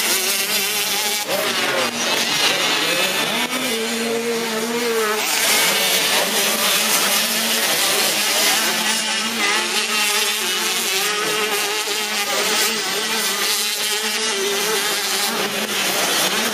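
Several 85 cc two-stroke motocross bikes racing, their engines buzzing at high revs, the pitch rising and falling as the riders work the throttle.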